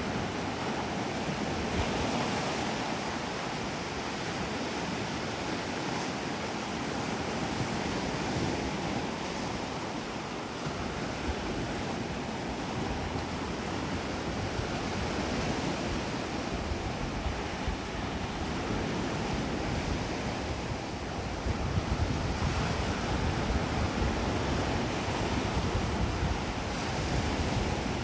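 Sea waves breaking and washing up a gravelly beach in a steady wash, with wind buffeting the microphone; the low rumbling gusts grow stronger about two-thirds of the way in.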